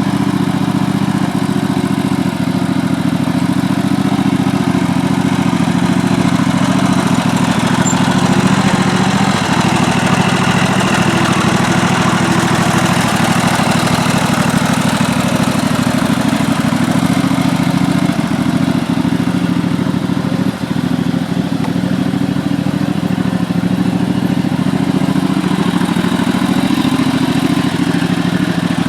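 Engine running steadily at an even speed, with no change in pitch.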